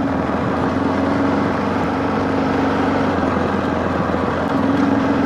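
Motorcycle engine running at a steady pace on a climb, its hum growing a little stronger about four and a half seconds in, over a steady rushing noise.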